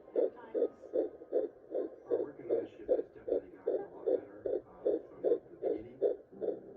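Fetal heartbeat at 15 weeks of pregnancy, picked up by a handheld Doppler: fast, even whooshing pulses, about two and a half a second.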